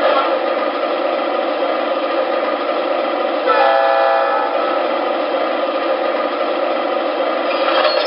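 Sound system of an MTH Premier O-gauge ES44AC model locomotive playing a GE diesel engine at idle, steady throughout. About three and a half seconds in comes one horn blast lasting about a second.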